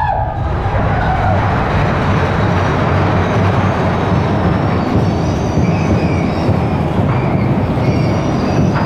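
Big Thunder Mountain Railroad mine-train roller coaster cars running along the track with a loud, steady rumble. A faint, high wheel squeal comes in about halfway through.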